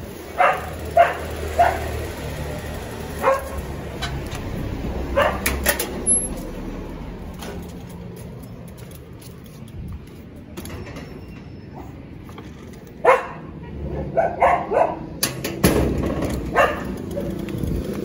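A dog barking in short sharp barks, a few in the first seconds, more around the middle, and a run of them near the end, over a low steady traffic rumble.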